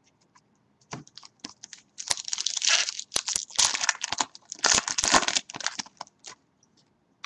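A foil trading-card pack wrapper being torn open and crinkled in two rustling stretches, with small clicks and rustles of cards being handled around them.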